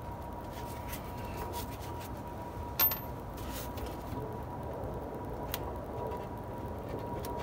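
Metal brake parts being handled and pressed onto a car's rear hub by gloved hands: faint scrapes and light clicks, with one sharp metallic click about three seconds in.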